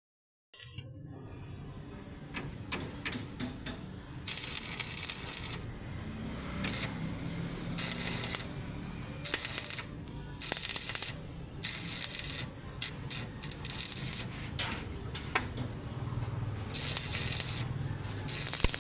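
A welding arc crackling and sizzling in irregular bursts of about a second each, with short breaks between them and scattered sharp clicks.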